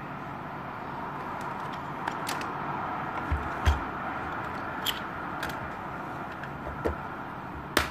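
Hard plastic case of a 115-in-1 screwdriver bit set being handled and its clear lid closed: a scatter of sharp plastic clicks and light knocks, the sharpest near the end, over steady background noise.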